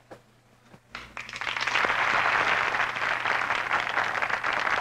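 Studio audience applauding, starting about a second in after a short hush and keeping up steadily.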